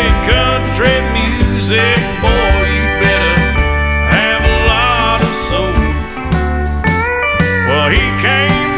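Country music soundtrack with a steel guitar playing gliding, bending notes over bass and drums.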